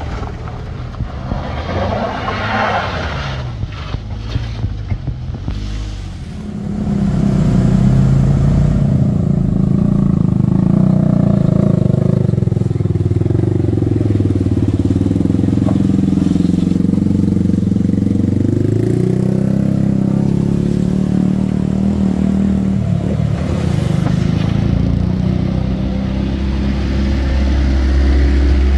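A heavy vehicle's engine comes in loud about six seconds in and keeps working hard. Its pitch sags in the middle and climbs back again. Quieter traffic noise comes before it.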